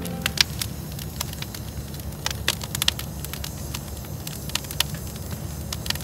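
Wood campfire crackling, with frequent irregular sharp pops over a low steady rumble.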